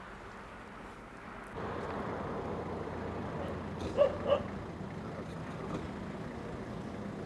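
Two short dog barks close together about four seconds in, over steady outdoor background noise that grows louder about a second and a half in.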